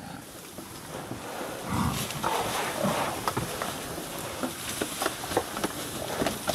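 Lions growling as they feed on a buffalo carcass. A low growl starts a little under two seconds in, followed by scattered short sharp clicks and cracks.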